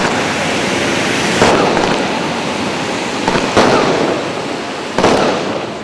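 Fireworks display bursting overhead: sharp bangs about a second and a half in, two close together around three and a half seconds, and another near five seconds, over a continuous rush of sound between them.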